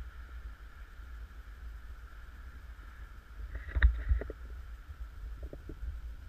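Low, uneven rumble of wind buffeting the camera microphone. Nearly four seconds in comes a short cluster of knocks, the loudest a single sharp crack, with two faint taps about a second and a half later.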